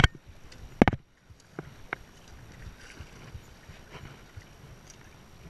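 Sharp knocks of a hand and spinning reel handling right at the camera microphone, one at the start and a louder cluster just under a second in, then a couple of lighter clicks, over a low, even wash of water lapping at the rocks and wind.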